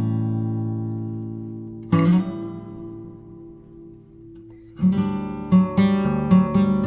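Background music on acoustic guitar: strummed chords ring out and fade, then a quicker rhythmic strumming starts about five seconds in.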